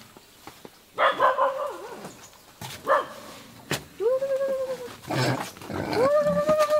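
A dog whining and yelping: short sharp cries, then two long drawn-out whines that rise at the start and hold steady.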